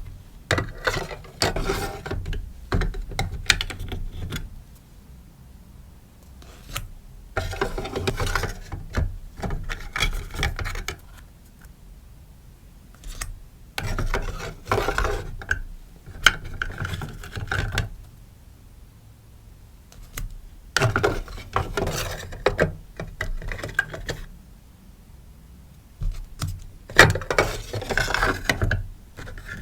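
Rustling and handling of sticker packaging, crinkling with small clicks, in five bursts of a few seconds each with short pauses between.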